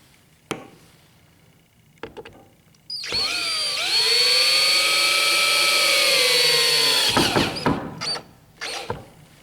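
A power drill drives a wood screw in one run of about four seconds, starting about three seconds in. The motor whine rises as it spins up, holds steady, then sags and stops as the screw seats. A few light clicks of the screw and bit being handled come before it, and some clattering after.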